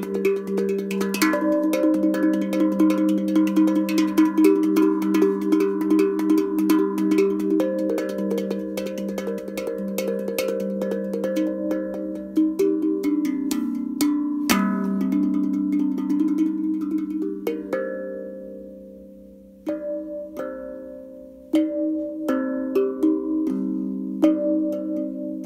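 Steel tongue tank drum tuned in G, played with quick fingertip taps: ringing metallic notes overlap in a fast, flowing run. About three-quarters of the way through the notes are left to die away, then the playing resumes with sparser strikes.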